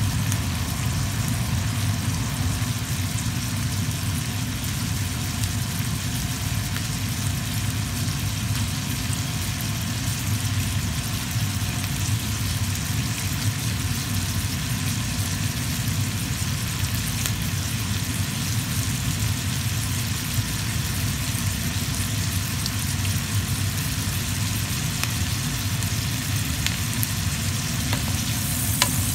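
Green beans sizzling steadily in hot fat in a skillet, a crackling frying hiss with scattered tiny pops over a steady low hum.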